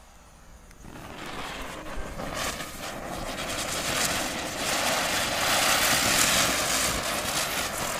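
Two ground-spinner firecrackers (chakri) catching about a second in and spinning, a hissing rush of burning sparks that grows louder, peaks around five to six seconds and eases off near the end.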